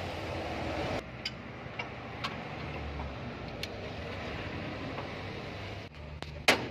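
Hands working the valve train of a Hino 500 diesel truck engine's cylinder head: a few light metal clicks of small parts being handled, then one sharp metal clank near the end, the loudest sound, as the camshaft is set onto the head.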